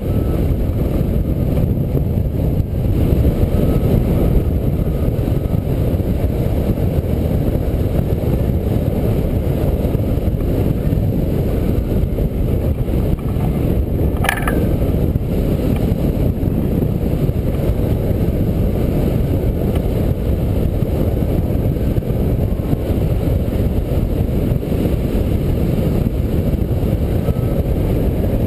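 Steady, loud low rumble of the airflow buffeting the microphone of a camera mounted on a hang glider in flight. A single short, higher sound cuts through briefly about halfway through.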